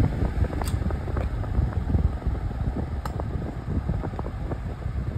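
Lasko Model 2000 oscillating fan running on low speed. Its blades push a steady rush of air, heaviest in the low end and fluttering, with a couple of faint ticks.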